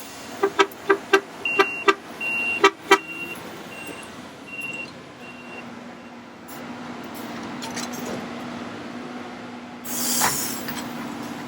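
Track-maintenance machinery: about ten sharp, ringing metallic strikes in quick succession over the first three seconds, over an intermittent high beeping like a backup alarm. After that an engine runs steadily, with a short hiss-like burst near the end.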